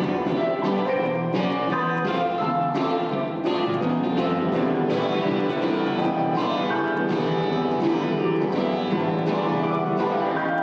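Live acoustic instrumental music: a steady run of pitched notes played without singing.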